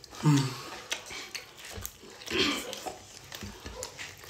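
Mouth noises of people eating sauce-covered meat with their hands: a short low grunt just after the start, wet chewing, a slurp about two and a half seconds in, and small clicks of fingers and food against a plate.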